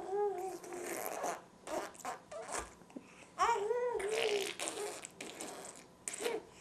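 A baby babbling in short high-pitched coos, with wet spluttering raspberries between them as she blows saliva through her lips.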